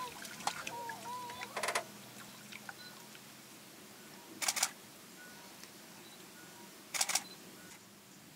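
Camera shutters firing in short rapid bursts: a run of clicks about a second and a half in, then two more bursts about four and a half and seven seconds in.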